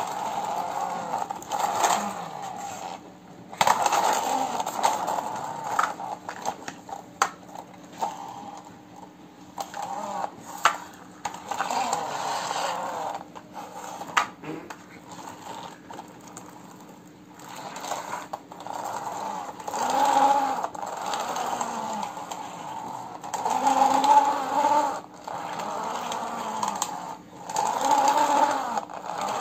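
Plastic toy truck pushed back and forth by hand on a hard floor. Its wheels whir in repeated bursts of a second or two, the pitch rising and falling with each push, with scattered plastic clicks and knocks.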